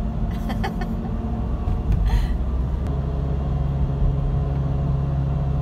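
Road noise inside a moving car: a steady engine and tyre rumble. A low engine hum grows stronger about three seconds in. There is a brief rustle about two seconds in.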